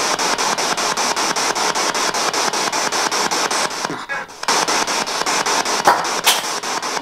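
Spirit box, a radio sweeping through stations, hissing with steady static that is chopped by regular clicks about six times a second as it scans. The hiss drops out briefly about four seconds in, and a couple of short sharp fragments come through about six seconds in.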